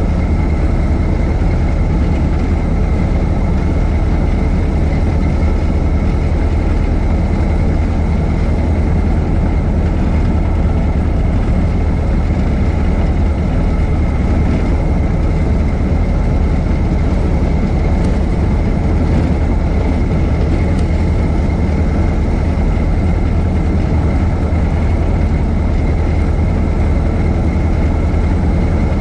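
1926 Ford Model T's four-cylinder engine running steadily while the car drives. The deep engine note holds even throughout, with a faint steady high tone above it.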